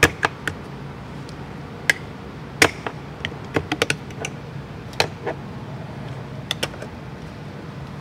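Irregular sharp plastic clicks and taps as a small flat screwdriver pries a plastic trim cover out of the interior door handle surround of a 2020 Chevrolet Silverado HD door panel, with a quick cluster of clicks a little after the middle.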